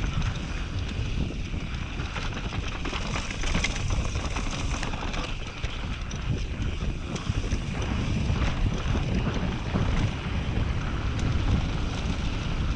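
Mountain bike riding fast downhill on a dry dirt trail: wind buffeting the camera microphone over a steady low rumble of tyres on dirt, with scattered rattles and ticks from the bike and loose stones.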